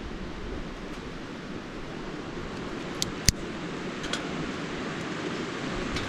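Steady rush of a river flowing over stones, with sharp snaps of small dry twigs being broken by hand: two close together about three seconds in, the second loud, and a fainter one a second later.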